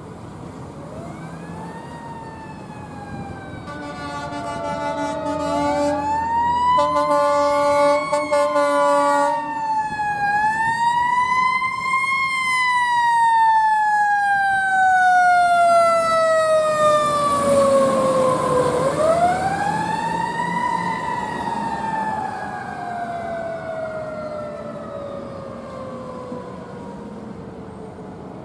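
Fire engine's siren wailing, rising and falling slowly in pitch, with two long air horn blasts between about four and nine seconds in. The siren grows louder toward the middle and then fades.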